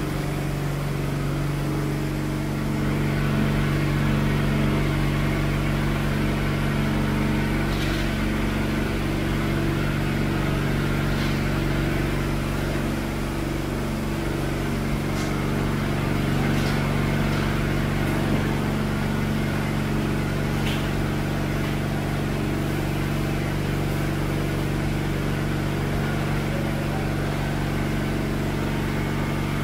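A steady low hum from a motor running at constant speed, with a few faint ticks.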